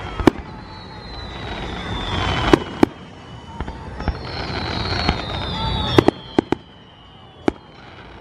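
Fireworks display: aerial shells bursting with sharp bangs, about seven in the space of eight seconds, some in quick pairs, over a steady low rumble. High whistles glide downward in pitch between the bangs.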